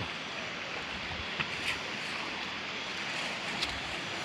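Steady rushing of river water at a dam under repair, with a few faint clicks or knocks.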